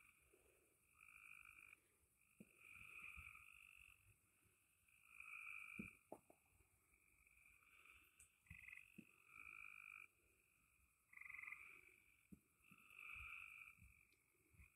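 Faint frog chorus: a trilling call about a second long repeats every second or two, with a few faint low knocks in between.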